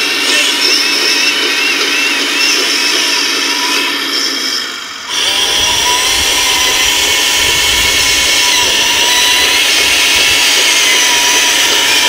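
Electric drive motors and gearboxes of an RC model Liebherr LR 634 crawler loader whining as it tracks and works its lift arm, the pitch wavering up and down. About five seconds in the sound cuts abruptly, and the whine then runs steadier with a low rumble under it.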